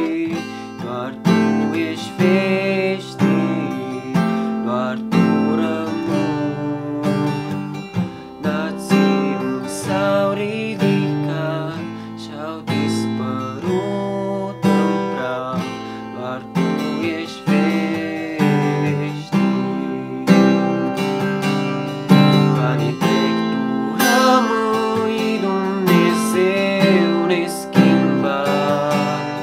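Acoustic guitar strummed in a steady rhythm, with a man singing over it at times.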